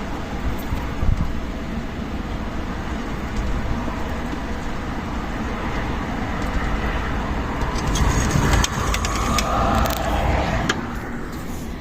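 Strong desert wind gusting and buffeting the microphone with a deep rumble, with a run of sharp ticks and rattles about eight to ten seconds in.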